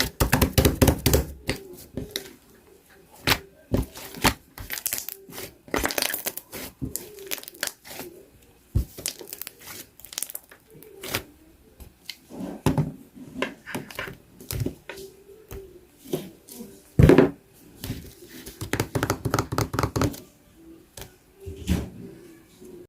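Slime being kneaded and stretched as two batches are mixed together, giving sticky crackling and popping of trapped air. The clicks and pops come irregularly, with dense flurries at the start and near the end and one loud pop about three-quarters through.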